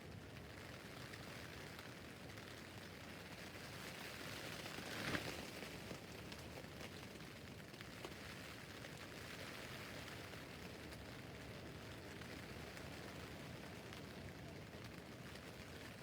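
Rain falling on a tent roof: a faint, steady hiss of drops on the fabric, with a brief louder swell about five seconds in.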